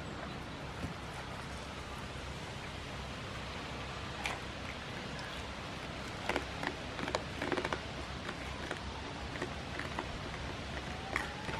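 Goats crunching treats taken from a hand: a cluster of short, sharp crunches in the middle, with a few single ones before and after, over a steady outdoor hiss.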